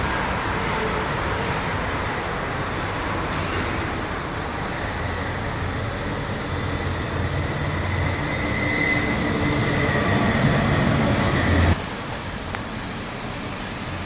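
Steady noise of passing vehicle traffic, a low rumble with a faint high whine building up, then breaking off abruptly near the end.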